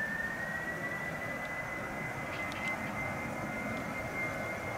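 Boeing 767-300 jet engines running at high power on the runway: a broad rushing roar with a thin whine that rises in pitch through the first second, then holds steady.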